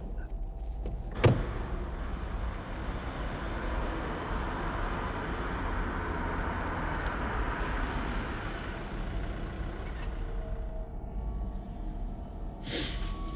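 A car door slams shut about a second in. Then a car drives by, its engine and tyre noise swelling and fading away.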